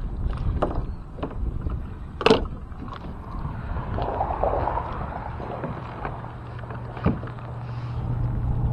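Knocks and rustles of handling in a kayak while a hooked bass is landed, the sharpest knock about two seconds in and another near the end, over a low rumble of wind on the microphone.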